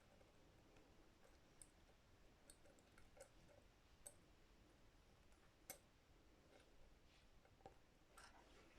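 Near silence with faint, scattered light clicks, about one every second or so, from small tools and wires being handled during soldering work.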